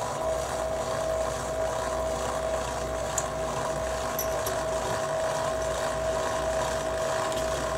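Milling machine's powered head-lift motor running steadily as it raises the head, a constant whine over a low hum.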